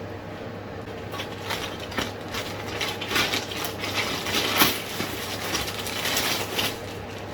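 Packaging being handled and opened: rustling and crinkling with scattered clicks and taps, busiest between about three and six and a half seconds in.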